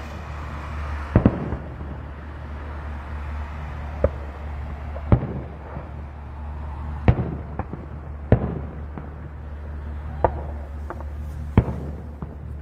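Fireworks display going off: about eight sharp bangs spaced a second or two apart, with crackling between them, over a steady low hum.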